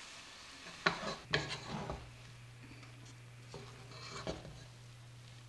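Wooden spatula and spoon stirring and tossing noodles in a metal pot. The noodles scrape and rustle against the pot in two spells, with a low steady hum underneath from about a second and a half in.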